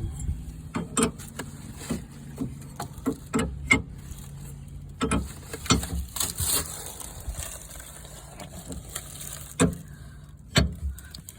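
Irregular metallic clicks, knocks and ratcheting of hand wrenches working hydraulic line fittings on a skid steer, with a steady low engine hum under the first few seconds.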